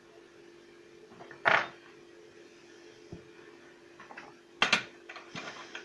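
Sharp clicks and knocks of a soldering iron and small electronic parts being handled on a workbench: a loud one about a second and a half in and a quick double click near the end, with lighter taps between, over a steady low hum.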